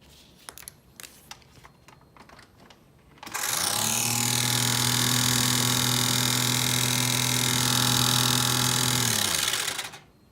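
Caterham Seven's heater blower fan switched on about three seconds in: it spins up, runs steadily with a loud airy hiss and motor hum, then winds down near the end. A few faint clicks come before it starts.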